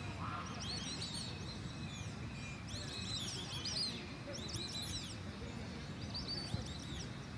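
Small birds chirping in quick bursts of high, arching notes, a cluster roughly every second or two, over a steady low background rumble.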